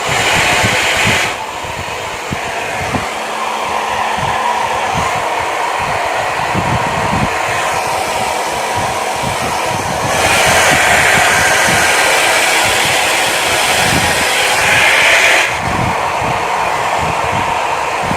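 Foldable hot-and-cold hair dryer running on its second setting: a steady rush of blown air with gusts buffeting the microphone. It gets louder about ten seconds in and drops back about five seconds later.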